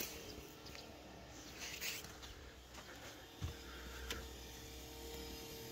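Skoda Fabia windshield wiper motor switching on with a knock about three and a half seconds in, then running with a steady low hum, driving the newly repaired wiper linkage; it runs smoothly.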